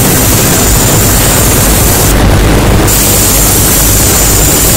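Harsh noise music: a loud, dense wall of distorted noise over the whole range from deep rumble to hiss, steady in level, with the top end briefly dulling about two seconds in.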